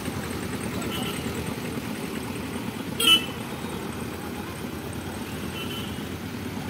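Mixed road traffic, small trucks and motorcycles, rumbling steadily as it crosses the tracks. A short, sharp vehicle horn toot about three seconds in is the loudest sound, with fainter brief beeps near the start and near the end.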